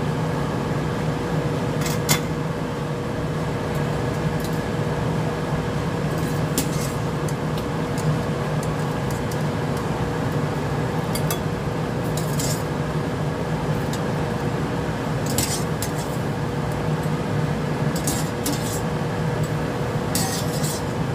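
Metal tongs and a wire skimmer clinking and scraping against a stainless steel pot as blanched broccoli is scooped out of the water, with scattered clinks over a steady hum.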